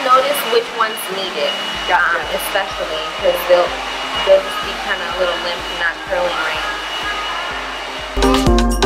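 Salon hair dryer running steadily, a constant blowing hum with a thin high whine, with faint voices under it. Music comes in near the end.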